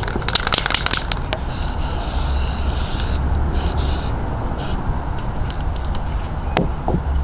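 Aerosol spray paint can spraying: a hiss of about a second and a half, then three short bursts. A quick run of clicks comes before the spraying.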